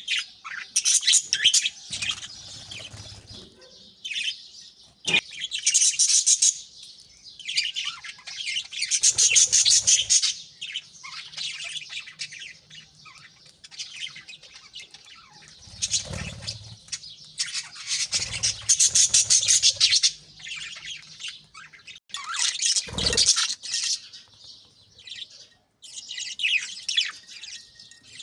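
Budgerigars chattering and chirping in bursts of fast, high warbling calls, several birds at once, with pauses between.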